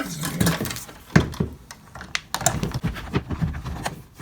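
Irregular light clicks and knocks of hands working Romex cable into a plastic old-work electrical box, with one sharp click about a second in.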